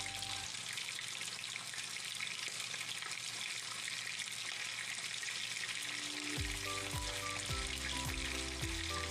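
Whole tilapia frying in oil in a pan, with a steady sizzle throughout. Background music stops about half a second in and comes back about six seconds in.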